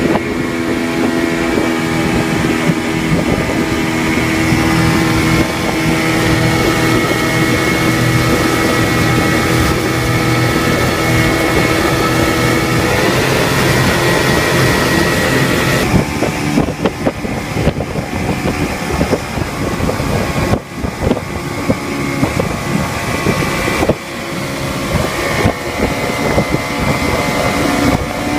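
Motorboat engine running steadily at speed, with the rush of wind and churning water from the wake. About halfway through the sound becomes more uneven, with a few brief dips.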